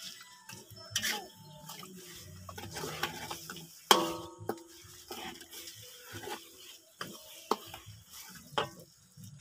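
Ladle stirring a thick spice paste in a large metal wok, scraping and knocking against the pan, with a loud ringing knock on the wok about four seconds in and quieter taps and scrapes through the rest.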